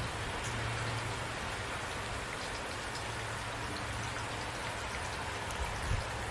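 Steady rain falling: an even hiss with scattered small drop ticks and a low steady hum underneath. A brief low thump near the end.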